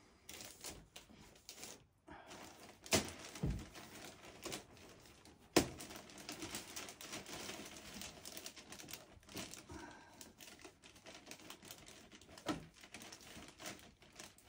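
Clear plastic vapour-barrier sheeting crinkling and rustling as it is handled and pressed into place, with many small crackles and two sharp snaps about three and five and a half seconds in.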